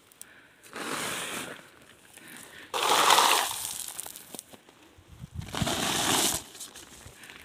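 Small porous stones and grit being scraped up by hand, three rough scrapes of about a second each, a couple of seconds apart.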